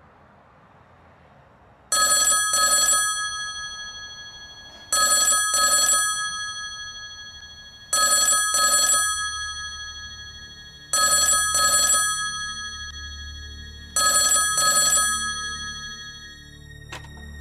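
Payphone ringing: five rings about three seconds apart, each a pair of short electronic rings that fade away, starting about two seconds in. A click near the end as the handset is lifted.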